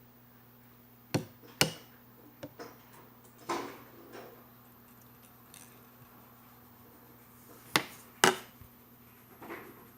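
Jiggly slime being handled: sharp clicking pops in two pairs, about a second in and near the end, with softer squishing sounds between.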